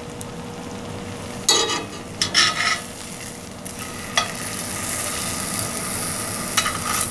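Bologna slices in barbecue sauce frying in a cast iron skillet, a steady sizzle that grows louder from about four seconds in. Metal tongs clack and scrape a few times: once at about 1.5 seconds, a short run of strokes between about 2 and 3 seconds, and again at about 4 seconds and near the end.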